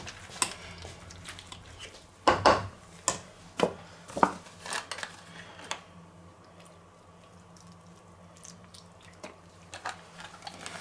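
Wire potato masher mashing boiled potatoes in a metal pot, with irregular knocks and clanks of the masher against the pot over the first half, then only a few faint clicks.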